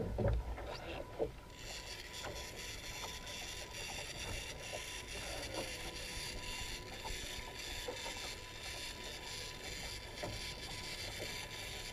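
Water sloshing around a kayak and wind on an action camera's microphone, a steady rumble and hiss, with two knocks in the first second and a half.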